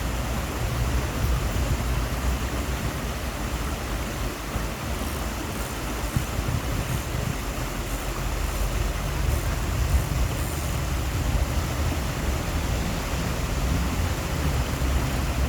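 Steady rushing noise of a flowing river, under a low rumble.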